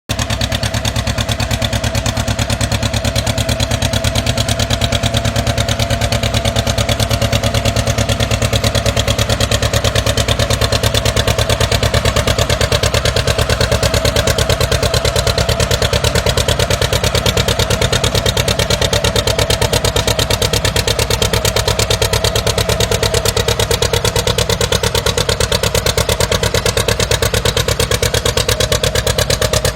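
Modified John Deere pulling tractor's engine running hard under load during a pull: a loud, steady, rapidly pulsing drone that barely changes in pitch.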